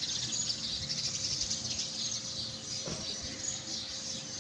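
Birds chirping steadily, many short chirps overlapping, with a faint steady hum under them and a single soft knock about three seconds in.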